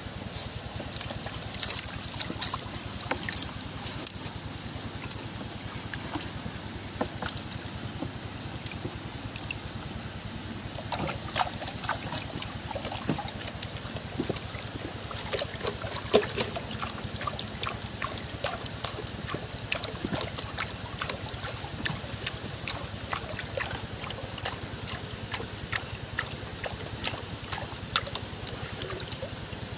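Water sloshing and trickling, with frequent sharp clicks and splashes over a steady low hum.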